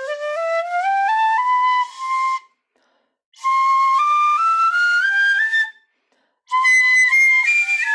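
Ranjo shinobue, an 8 hon choshi Japanese bamboo transverse flute, played solo: a scale climbing note by note, then after a short breath a second climb that carries on into the higher octave, and after another pause a brief phrase of short notes near the end.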